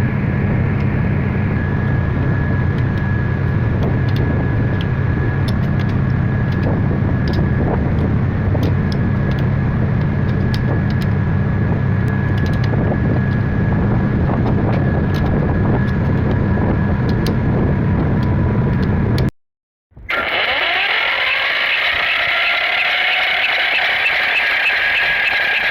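An engine running steadily with a low rumble and light clicks. About twenty seconds in it cuts out for a moment and is followed by a hissing, higher-pitched noise.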